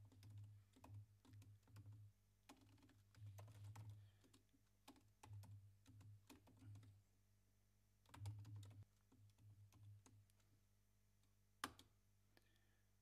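Faint typing on a computer keyboard: irregular runs of key clicks broken by short pauses, with one sharper single click near the end.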